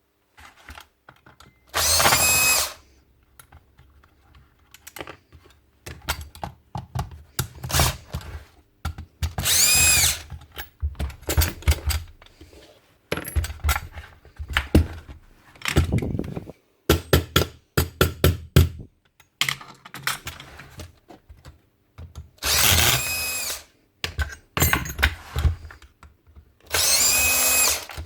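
Cordless drill-driver spinning up in short runs of about half a second to a second, four times, undoing the screws of a Paslode IM350+ nail gun as it is stripped for service, with clicks and knocks of parts and tools being handled in between.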